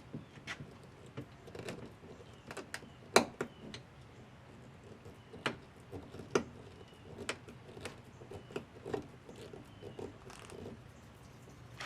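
Irregular clicks, taps and knocks of hand work on parts, with one sharp knock about three seconds in and another pair around six seconds.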